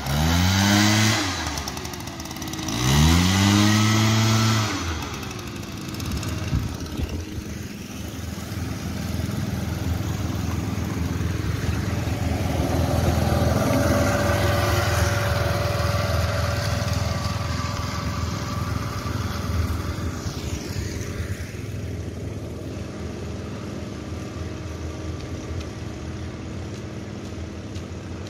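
A backpack leaf blower's engine revved up and let back down twice in the first few seconds, followed by an engine running steadily with a constant drone.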